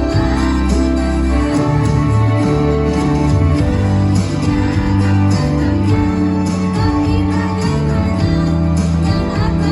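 Music: a song with held bass notes, plucked string accompaniment and singing voices.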